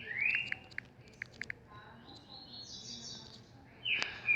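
A bird chirping in short sweeping calls at the start and again near the end, with a few sharp clicks in between.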